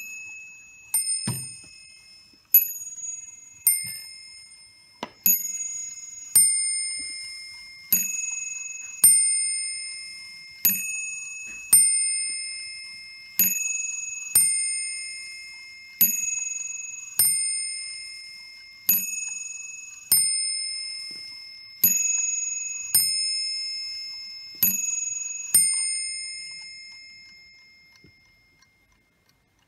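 Warmink 8-day bracket clock striking on its brass bell: about twenty ringing strikes, roughly one a second in an uneven two-by-two rhythm, each left to ring on. The last strike fades out a few seconds before the end.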